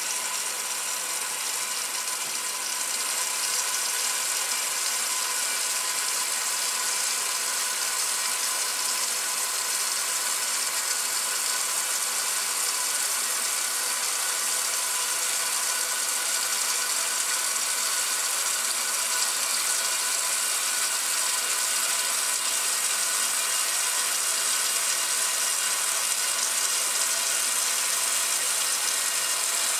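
1968 Kenmore top-load washer agitating a load in its wash cycle, the motor and agitator drive running steadily.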